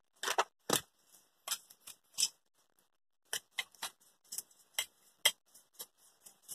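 Brush scraping dust and grime off the heating plate of a Philips steam iron: a string of short, irregular scratching strokes, with a brief pause near the middle.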